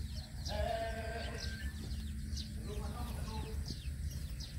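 Young puppies whining, with one held whine about half a second in and many short high squeaks, over a steady low rumble.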